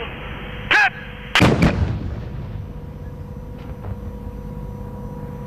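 Tracked self-propelled howitzer firing: one loud boom about a second and a half in, a second crack right behind it, and a rumble that dies away over the next second.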